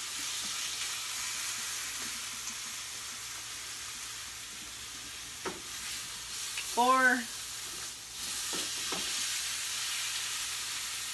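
Steady sizzling from the seared roast and liquid in a hot Instant Pot, with a few brief clicks as whole peppers are dropped in.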